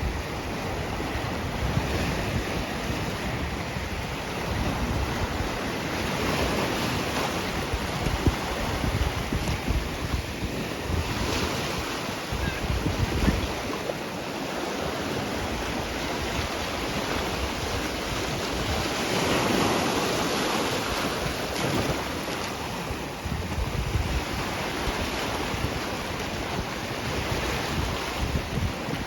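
Sea waves washing ashore, swelling and easing every few seconds, with wind gusting on the microphone.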